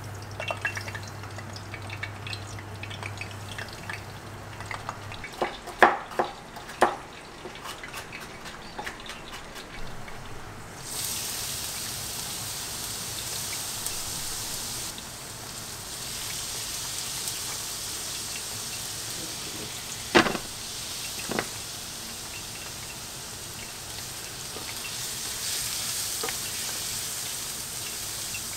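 Minced garlic sizzling in olive oil in an iron skillet, a steady hiss that starts about eleven seconds in. Before it come a low hum that stops about five seconds in and a few sharp knocks; midway two sharp clinks of a utensil against the pan.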